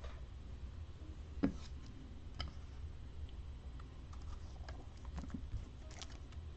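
Light clicks and taps of clear plastic trading-card holders and sleeves being handled and set down on a play mat, with one sharper knock about a second and a half in.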